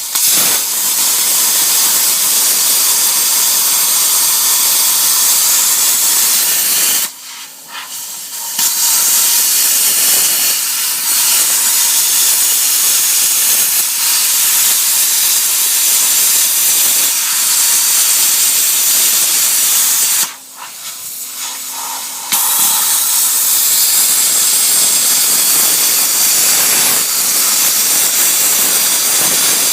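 Loud, steady hiss of compressed air from a shop air tool during frame repair work. It breaks off twice, each time for a second or two.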